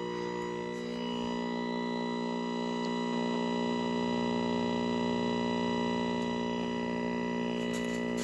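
Steady buzzing hum from a running 1969 Zenith portable black-and-white tube TV, a stack of many even overtones, holding level and swelling slightly about a second in.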